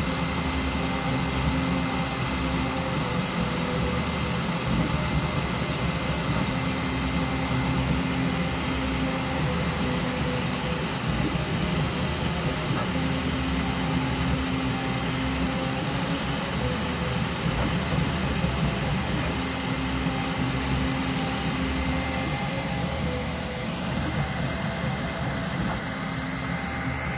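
Flashforge 3D printer running a print: a steady whir with a constant high whine, and a low hum that comes and goes every six seconds or so as the print head moves.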